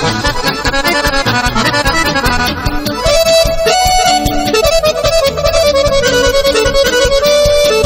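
Accordion-led Serbian folk music for a kolo dance, with a steady beat; about three seconds in, the melody moves to long held notes.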